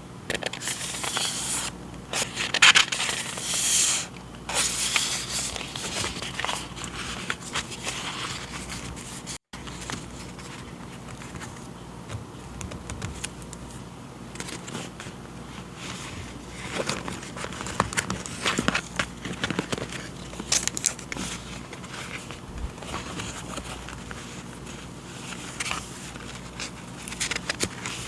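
Paper and packaging being handled: loud rustling and scraping in the first few seconds, then softer scattered rustles and light taps after a brief cut-out about nine seconds in.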